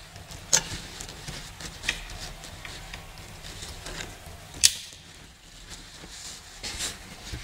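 Handling sounds from a 3D printer being assembled: a few sharp clicks and light taps as hands work on the printer's frame and wiring at the top of the gantry. The loudest click comes about four and a half seconds in.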